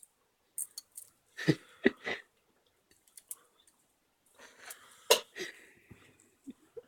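A sleeping person snoring: short throaty snorts and wheezy breaths, in two clusters, the first about a second and a half in and the second about five seconds in, each with one sharp, loud snort.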